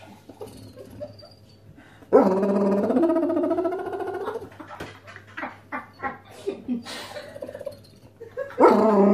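Basset Hound begging for food with long, drawn-out howling moans. One starts about two seconds in and lasts about two seconds, followed by shorter, softer sounds, and a second long moan begins near the end.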